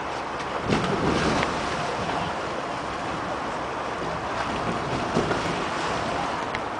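Water splashing and churning around an inflatable water-walking ball as the person inside scrambles on it, over steady wind noise on the microphone. It is a little louder about a second in.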